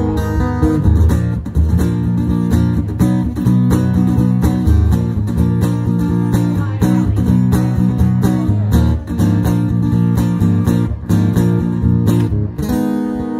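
Amplified acoustic guitar played solo, with strummed chords and no singing.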